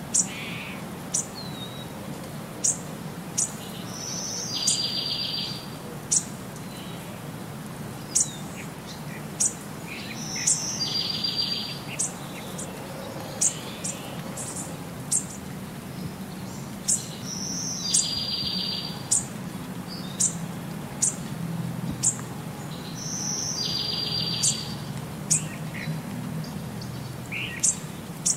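Birdsong: short high chirps about every second and a half, with a rapid buzzy trill about every six seconds, over a low steady hum.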